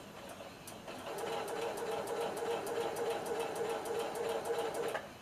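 Singer electric sewing machine stitching through thick layered denim. It runs with a steady whir and a light, regular ticking, picking up about a second in and stopping just before the end.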